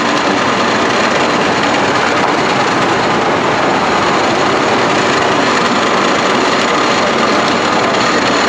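Corn cutter running: a loud, steady mechanical din from the machine that trims kernels off the cobs with a circular knife.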